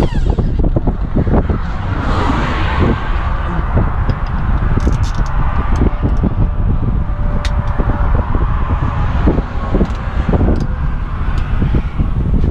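Road traffic passing close by: a broad rushing hiss of vehicles going past that swells and fades, over a steady low rumble, with a few sharp clicks.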